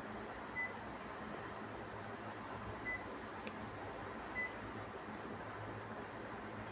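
Panasonic air conditioner's indoor unit beeping three short single beeps as it takes commands from its remote, over the steady rush and low hum of the unit running.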